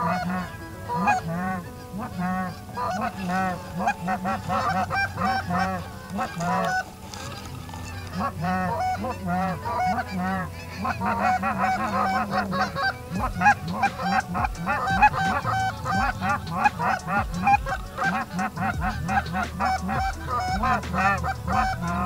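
Canada goose honks and clucks, many short calls overlapping in a fast, continuous stream as a flock is called in, easing off briefly about seven seconds in and growing denser again afterwards.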